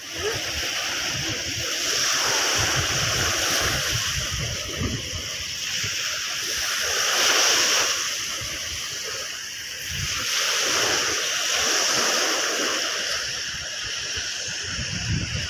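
Sea surf washing onto a beach, swelling and easing every few seconds.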